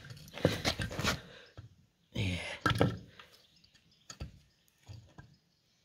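Knocks and clunks of tools and parts being handled, in two short clusters, then a single sharper knock about four seconds in.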